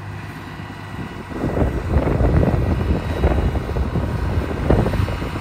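Deutz-Fahr 70 hp tractor's diesel engine running, getting louder about a second and a half in as it is brought up to about 2000 rpm under load for a performance check, in stock form before its turbo upgrade.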